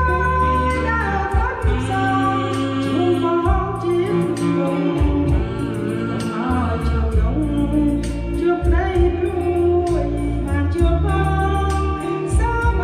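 Music: a song with a voice singing over a backing track with a steady beat and deep sustained bass.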